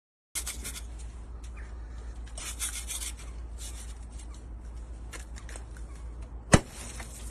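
Ice being scraped off a car window with a card, in irregular scratchy strokes over a steady low rumble. A single sharp thump about six and a half seconds in.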